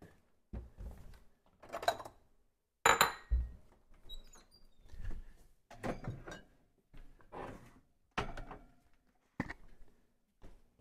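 Kitchen handling clatter: irregular knocks, thunks and clinks of containers and cupboard parts being moved and set down. The loudest is a sharp clink with a brief ring about three seconds in.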